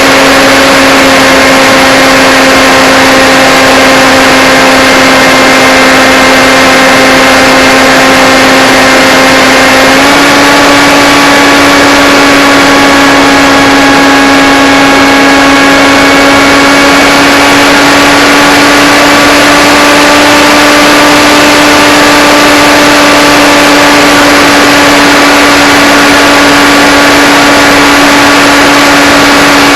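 Blade Theory Type W FPV drone's electric motors and propellers humming loudly at a steady pitch in flight. The pitch steps up slightly about ten seconds in and then creeps a little higher.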